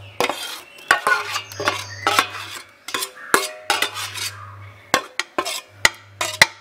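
Metal spoon scraping and clinking against a stainless steel pan and the rim of a stainless pressure cooker pot as thick chili paste is scooped out, in an irregular run of quick knocks and scrapes.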